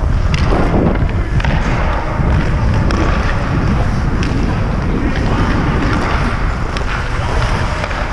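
Ice hockey skates scraping and gliding on the ice under a heavy rumble of wind on the microphone, with a few sharp clicks in between.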